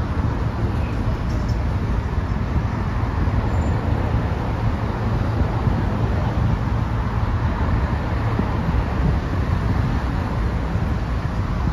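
Steady low rumble of road traffic crossing the Brooklyn Bridge, heard as a continuous noise.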